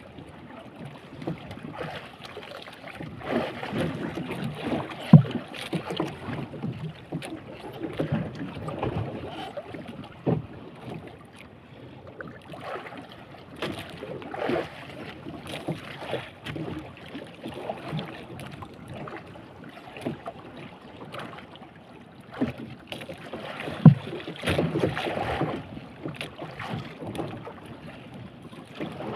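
Water slapping and lapping against the hull of a small wooden boat drifting at sea, with wind on the microphone. Two sharp knocks stand out, about five seconds in and near the end.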